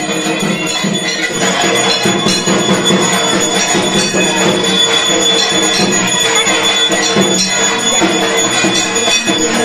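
Devotional Hindi song music with bells ringing throughout, as during a temple aarti.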